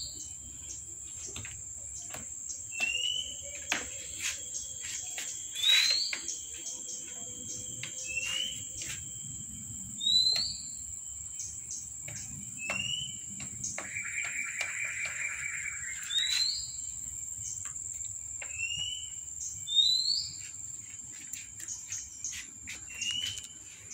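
A bird repeating a short, rising whistled chirp every two to three seconds over a steady high-pitched insect trill, with one brief buzzy trill in the middle. Light clicks and scrabbling of kittens' claws on a plastic tub run underneath.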